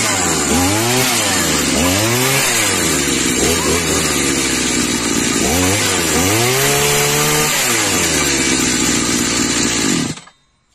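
Chinese petrol brushcutter's small two-stroke engine running, revved in quick blips that rise and fall about once a second. It is then held up at speed for over a second before dropping back to a steady idle. The sound cuts off suddenly near the end.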